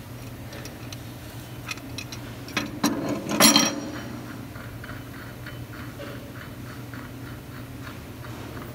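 Small metallic clicks and knocks as a wire drawing machine's capstan is handled and worked loose on its shaft, with a loud clank about three and a half seconds in. A steady low hum runs underneath.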